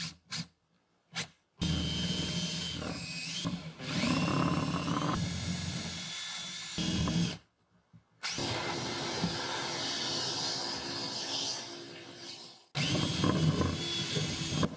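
Cordless drill boring into a wooden gun stock: the motor runs under load in three long stretches, with the bit chewing through the wood and a whine that shifts in pitch, broken by abrupt stops.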